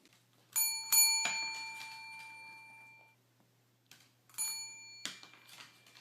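A small metal bell rung with three quick strikes, each ringing out and fading over about two seconds, then rung again about four and a half seconds in.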